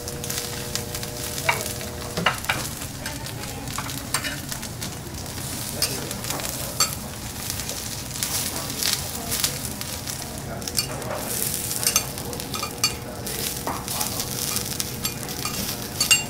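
Food sizzling on a hot teppanyaki iron griddle, with metal spatulas clicking and scraping against the plate at irregular moments.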